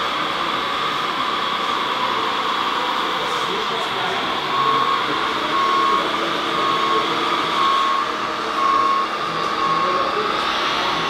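Radio-controlled scale Volvo wheel loader model running with a steady mechanical hum. From about four and a half seconds in, a reversing alarm beeps evenly at one pitch, about one beep every 0.7 s.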